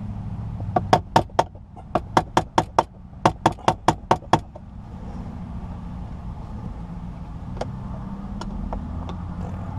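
Hammer tapping on the armrest's retaining tab to bend it out of place: three quick runs of sharp strikes over about three and a half seconds, then a few faint clicks.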